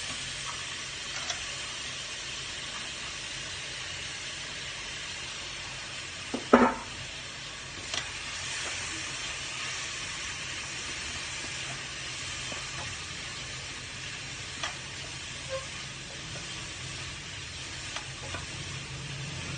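Dried shrimp frying with sautéed tomato and onion in a non-stick wok, a steady sizzle as it is stirred with a spatula that clicks against the pan now and then. One much louder knock about six and a half seconds in.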